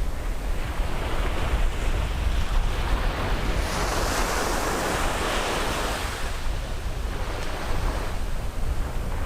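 Ocean surf washing onto a beach: a wave breaks and rushes in loudly about four seconds in, then eases back, with a smaller swell near the end. Wind rumbles on the microphone throughout.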